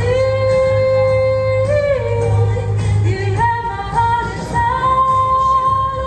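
A solo singer's amplified voice holding long high notes over a recorded backing track with a steady bass. One note is held for about two seconds at the start, and another from about the middle to the end.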